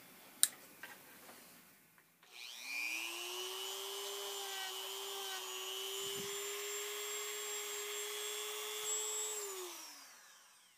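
Power drill spinning up about two seconds in, running steadily at one pitch, then winding down near the end, used to polish a rivet gun nose with a felt polishing bob. A single click comes shortly before it starts.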